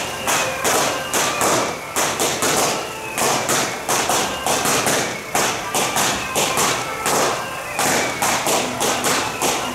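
Temple procession percussion troupe playing: drums, gongs and cymbals struck in a fast, steady beat of several strikes a second, with bright cymbal crashes.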